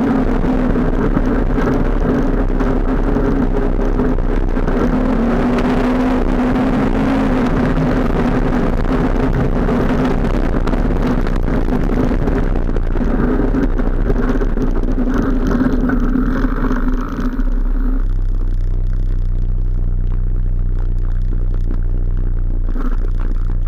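ATV engine running as the quad rides along, its pitch rising and falling with the throttle; about eighteen seconds in it drops to a lower, steady note as the machine slows right down.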